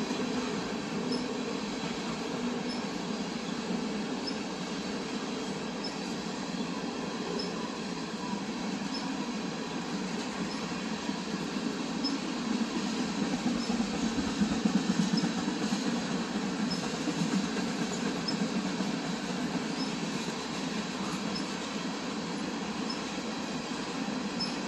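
CPKC freight train rolling past on the rails, a steady rumble and rattle of cars going by that swells a little about halfway through.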